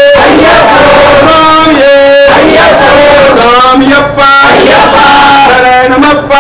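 Men's voices singing a devotional chant together, loud, in held notes with short breaks between phrases about four seconds in and again near the end.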